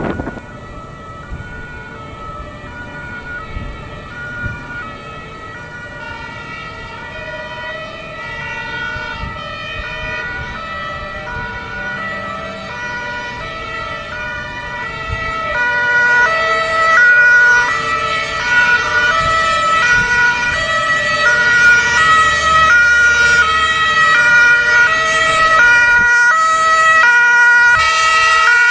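Fire engine two-tone siren (German Martinshorn) sounding its alternating high and low notes in an even, steady rhythm. It grows much louder about halfway through as the vehicle comes closer.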